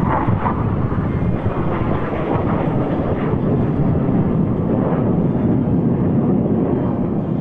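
Airplane engine noise at an air show: a loud, steady rumble, with most of its weight low and no clear change in pitch.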